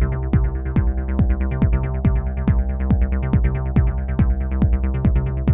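Electronic dance music: a drum-machine kick about twice a second with lighter ticks between, over sustained synth chords.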